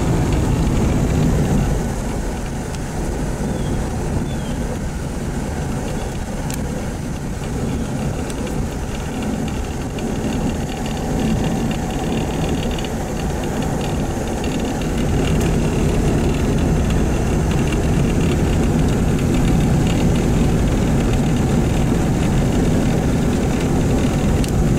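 A Chevy 350 small-block V8 in a 1954 Corvette running as the car is driven, heard from inside the car with road noise. The engine sound eases after the first couple of seconds and grows louder again about halfway through.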